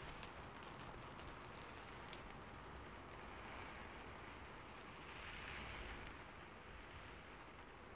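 Rain on a rooftop ambience track: a faint, steady patter with scattered single drops, swelling slightly about two-thirds of the way through.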